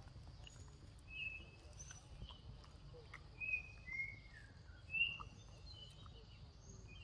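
Several short whistled bird chirps and little falling calls, the loudest about five seconds in, over a steady high background hiss.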